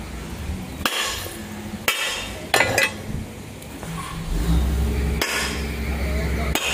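Excavator's diesel engine running, growing louder and heavier about four seconds in as it takes up load, with sharp metal clanks from the steel track chain and shoes every second or so.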